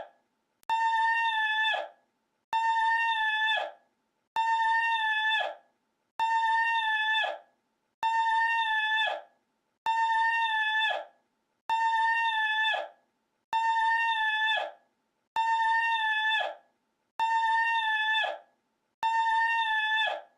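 A single high-pitched cry held on one steady note, looped to repeat identically about every two seconds, with short silent gaps. Each call lasts a little over a second and dips slightly in pitch as it cuts off.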